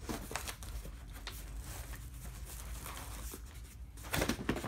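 A flattened corrugated cardboard box is rolled and bent by hand against the floor, crackling and rustling as it creases, with a louder burst of crackling about four seconds in. It is being rolled so that it will curve into a half-round.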